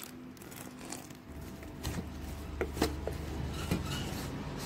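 Wooden spatula stirring rice flour and hot water into dough in a stainless steel bowl, with a few light knocks of the spatula against the bowl between about two and four seconds in.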